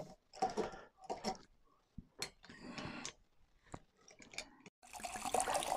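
Corkscrew being twisted into the cork of a wine bottle: a string of short creaks and clicks from the screw working through the cork. Near the end a louder, continuous sound starts suddenly.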